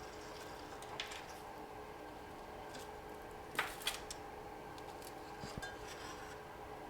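A few light clicks and taps of small tools and parts being handled at a repair bench, sharpest in a short cluster midway, over a faint steady electrical hum.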